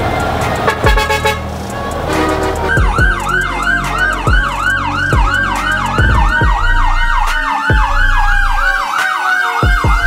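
Background music with a heavy bass beat. From about three seconds in, a siren warbles fast over it, about three sweeps a second, alongside a second tone that slowly falls in pitch.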